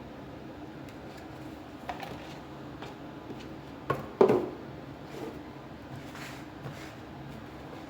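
Handling of a smartphone's retail packaging and contents: a few light clicks and a louder knock about halfway through, over a steady low hum.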